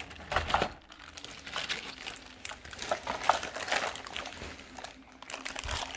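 Plastic wrapping crinkling and rustling unevenly as it is handled and cut or untied.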